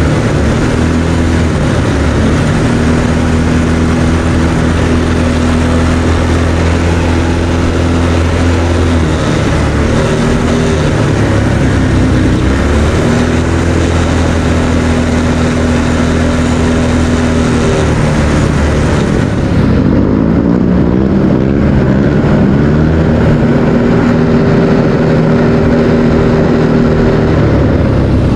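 ATV engine running under way, steady for long stretches, its pitch dipping and climbing again with the throttle about ten seconds in and again around twenty seconds in, over a constant hiss.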